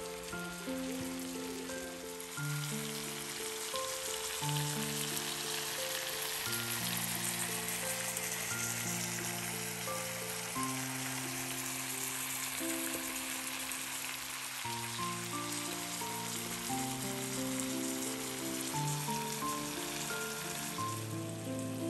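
Food sizzling in a frying pan, a dense steady hiss that picks up about two seconds in, with background music playing throughout.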